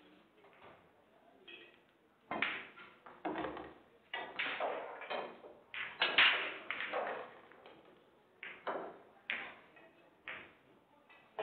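Pool balls clicking against each other and the table in a large, echoing hall: a string of sharp clicks, each ringing briefly, the loudest about six seconds in.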